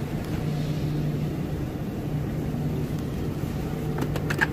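Steady low hum of a supermarket refrigerated display case, with a few short clicks or rustles near the end.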